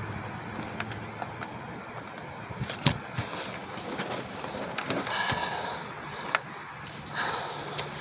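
Scattered small metal clicks and taps from a bolt and hand tools being handled while a thermostat housing is refitted in a cramped engine bay, with a sharper knock about three seconds in and another near six seconds.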